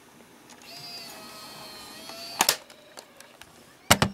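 Samsung SCL770 Hi8 camcorder's tape mechanism closing: a small loading motor whirs steadily for about two seconds and ends in a clunk. Two sharp clicks follow near the end.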